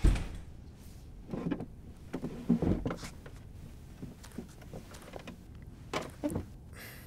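A thud, then scattered scrapes, knocks and creaks of a person moving about and sitting down in a chair at a desk.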